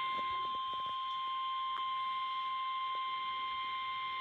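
NOAA Weather Radio warning alarm tone: a single steady, high 1050 Hz tone over radio static hiss. It is the alert signal that a severe weather warning message is about to follow.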